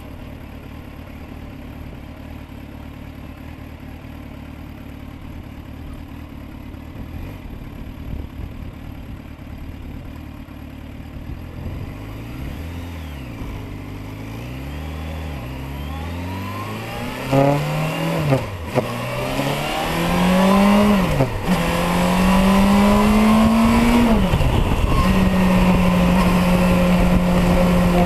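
Motorcycle engine heard from the gas tank, at first running low and quiet at slow speed. About halfway it accelerates through the gears: the pitch climbs and falls back at three upshifts, then holds steady at cruise, with wind rush.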